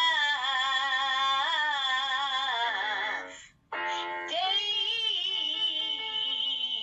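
A solo voice singing a slow song, holding one long wavering note, breaking off briefly a little after three seconds, then holding another long note.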